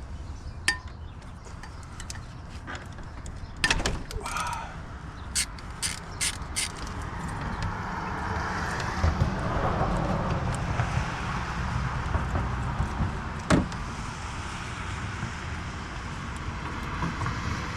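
Metal hand tools clicking and knocking as a bolt is worked with a wrench on an extension, in scattered sharp clacks. A steadier rushing noise swells in the middle and eases off.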